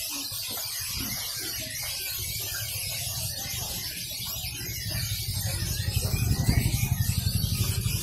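Busy market background with a constant high hiss and faint voices. A small engine runs close by, its low pulsing rumble growing louder from about five seconds in.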